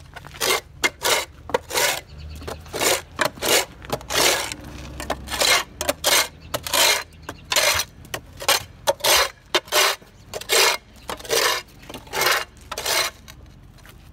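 GradrBlade hand scraper's blade scraping packed dirt and gravel across paved ground in quick repeated strokes, about one to two a second.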